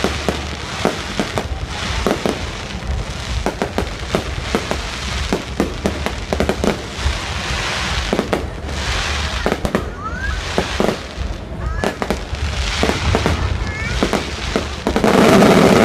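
Fireworks display: a rapid, irregular series of bangs from bursting shells, with a few short rising whistles and stretches of crackling.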